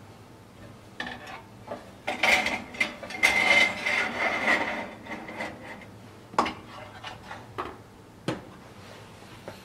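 Metal scraping and clattering of a toaster oven's wire rack and tray as bread is loaded in, then a few sharp clicks, the last as the Balmuda toaster oven's door is shut.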